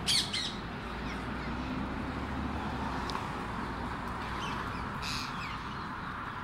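Rose-ringed parakeets calling with harsh, high screeches: a loud burst of two or three calls right at the start, and another short burst about five seconds in.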